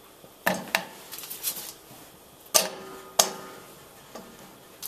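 Slabs of cold butter dropped into an empty stainless steel saucepan, each landing with a sharp knock on the metal; several knocks, unevenly spaced.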